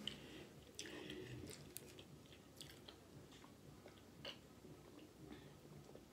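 Faint mouth sounds of chewing and swallowing with soft scattered clicks, then sips from a plastic water bottle.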